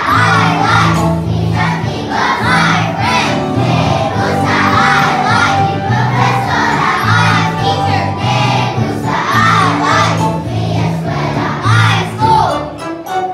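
A group of children singing together like a choir, over recorded accompaniment with a bass line.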